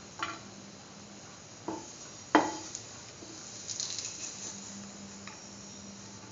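Spatula knocking and scraping on a metal frying pan holding a film of ghee: a few sharp taps, the loudest about two and a half seconds in, then a short scrape around four seconds in.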